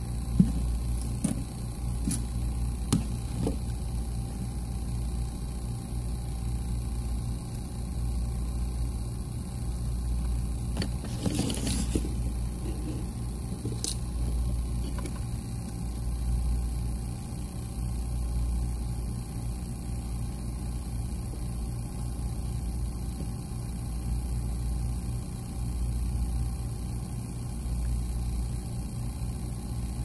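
A steady low hum that swells and fades every couple of seconds, with a few faint clicks in the first few seconds and a brief rustle about eleven seconds in.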